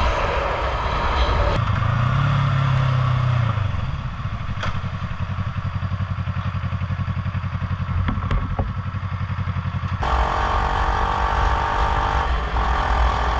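Motorcycle engine and wind noise while riding. Partway through, the engine sound drops to a low, evenly pulsing idle, the gearbox having slipped into neutral.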